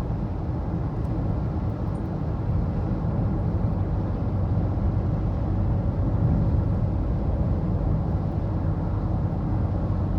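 Steady engine hum and road noise inside a moving car.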